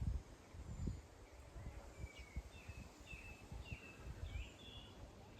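Faint birdsong: a string of short chirping, slurring notes repeating from about two seconds in, over a low uneven rumble of wind on the microphone.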